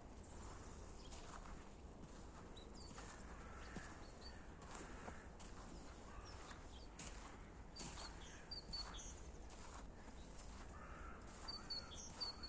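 Slow footsteps on a path, about one a second, with small birds giving short high chirps now and then, more of them near the end, over a faint low outdoor rumble.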